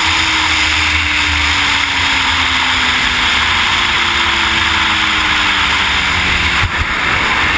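Loud, steady wind rush and buffeting on a helmet-mounted camera on a moving BMW S1000RR. Underneath, the bike's inline-four engine note is faint and slowly falls in pitch as it eases off.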